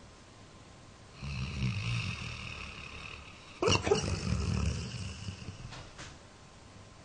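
A 13-year-old Labrador retriever snoring in its sleep. One long snore starts about a second in, then a sudden, louder burst comes about halfway through and fades over the next second.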